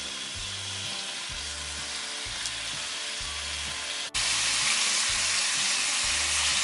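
Stuffed cuttlefish sizzling in hot olive oil in a stainless steel pan, a steady frying hiss that jumps louder about four seconds in.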